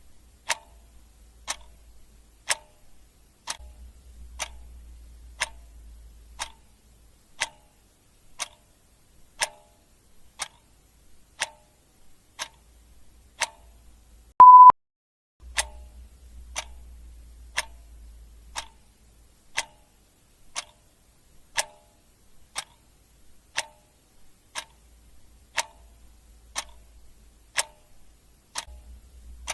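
Clock ticking steadily, about one tick a second, with a single short, loud beep about halfway through.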